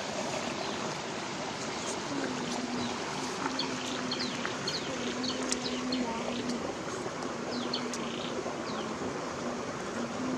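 Stream flowing steadily, a constant rush of water, with short high chirps of small birds through the middle and a faint low hum that comes and goes.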